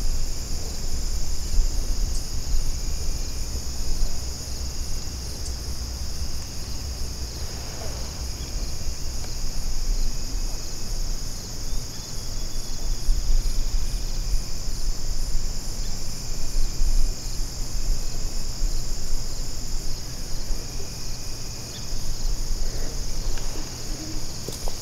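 Late-summer evening insect chorus: a steady, high-pitched trilling that does not let up, with a low rumble underneath.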